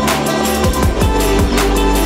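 Background electronic music with a steady beat and a deep bass line that slides down in pitch.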